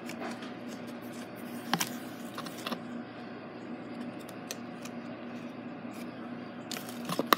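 Small stiff paper cards being handled and shuffled: light rustles and taps, a sharper one about two seconds in and a few more near the end, over a steady low hum.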